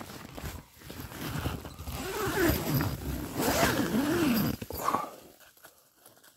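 Tent door zipper being pulled in several strokes, with the nylon tent fabric rustling.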